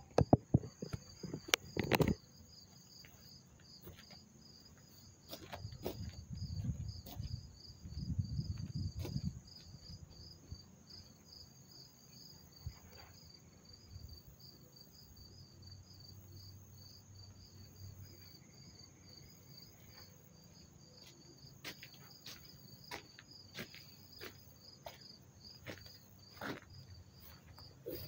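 Crickets chirping steadily in an even, pulsed rhythm several times a second, with a fainter steady trill above. There are a few sharp clicks in the first two seconds and low rumbles around six and nine seconds in.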